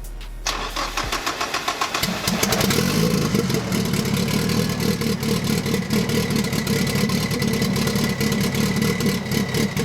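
Car engine cranking and starting, catching about two seconds in and then running at a steady idle.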